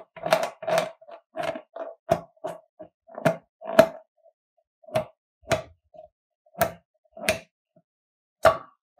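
A slime-filled rubber balloon being squeezed by hand, making a run of about fifteen short squishes at an uneven pace, each with the same pitch.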